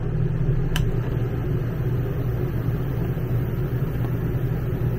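RV rooftop air conditioner running in cooling mode on high fan: a steady hum with rushing air. A light click comes about a second in.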